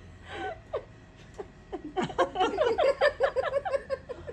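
A woman laughing, first a short breathy laugh behind her sleeve, then about halfway through a run of quick giggling laugh pulses.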